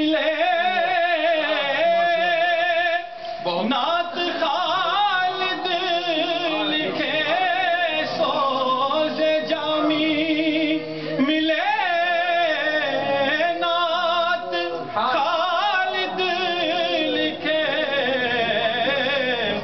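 A man singing an Urdu naat solo, with long, wavering held notes and sliding ornaments in an ornamented devotional style.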